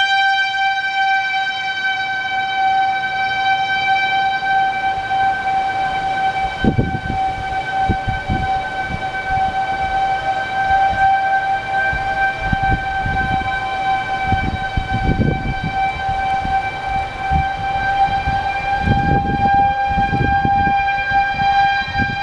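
Outdoor tornado warning siren holding one steady high tone, with low rumbling noise coming and going underneath.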